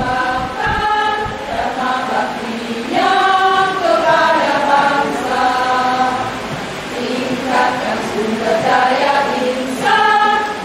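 Women's choir singing, holding long notes that change every second or so, louder from about three seconds in.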